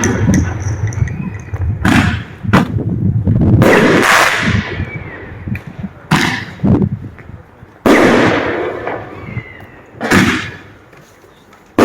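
Aerial firework shells bursting close by, about eight sharp bangs in irregular succession, each followed by a fading rumble; the heaviest come about four and eight seconds in.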